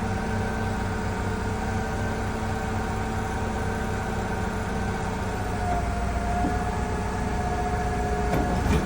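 An engine running steadily at idle: an even, continuous hum with a few constant tones.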